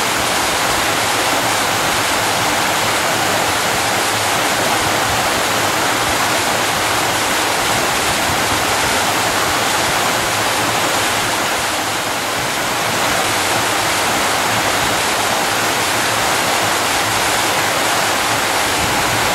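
Waterfall pouring: a loud, steady rush of falling water heard from close under it.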